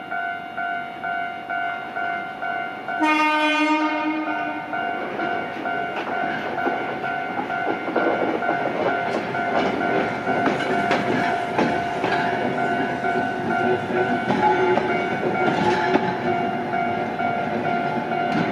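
Level crossing warning signal ringing steadily with a pulsing tone. About three seconds in, a train horn sounds once for about a second and a half, then the train passes with its wheels clattering over the rail joints.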